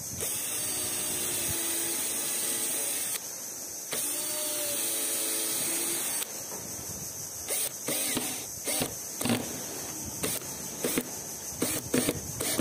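Cordless drill driving screws through a strap into wooden slats: two runs of steady motor whine, one of about three seconds and one of about two. After these runs come a series of short sharp clicks and knocks.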